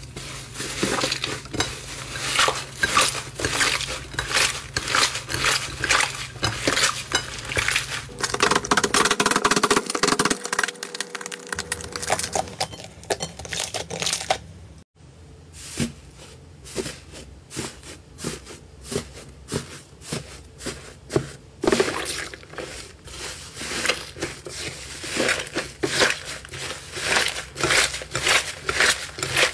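Slime being squeezed, kneaded and pulled apart by hand: a rapid, irregular stream of wet crackles, pops and squelches, broken by a short gap about halfway through.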